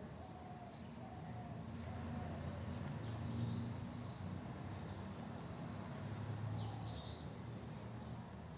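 A bird chirping in short, high, falling notes, repeated irregularly a couple of times a second, over a steady low background rumble.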